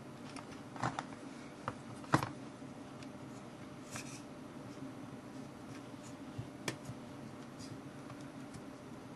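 Scattered small clicks and taps from hands and a thin tool working on the casing of a Nikon Coolpix 5200 compact digital camera, the sharpest about two seconds in, over a faint steady low hum.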